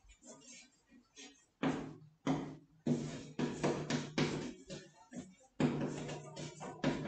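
Chalk writing on a wooden blackboard: a run of sharp taps and scraping strokes. Each stroke starts with a knock and fades quickly, and they come thickest in the second half.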